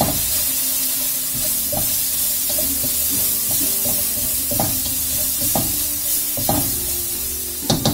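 Spice masala sizzling in oil in a non-stick wok, stirred with a spatula that scrapes and knocks against the pan several times at irregular intervals, with a louder scrape near the end.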